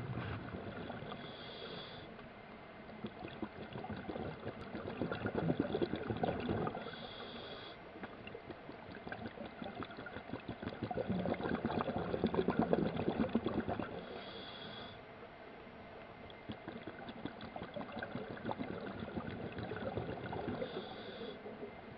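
Scuba diver breathing through a regulator underwater: four short hissing inhales, each followed by several seconds of bubbling, gurgling exhale, repeating about every six and a half seconds.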